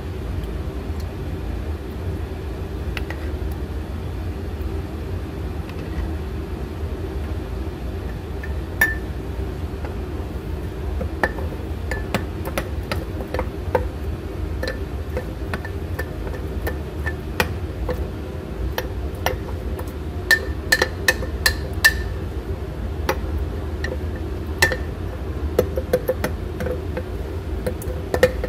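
Metal spoon stirring thick sourdough starter in a glass jar, clinking against the glass in scattered taps and a quick run of several taps, over a steady low hum.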